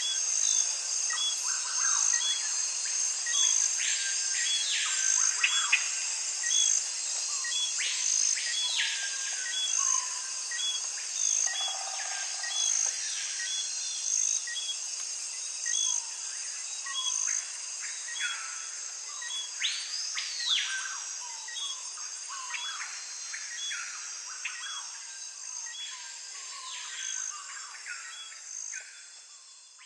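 Birds calling over a steady insect chorus: a high insect drone with a short chirp repeating a little over once a second, and birds giving calls that rise and fall in pitch. It fades out near the end.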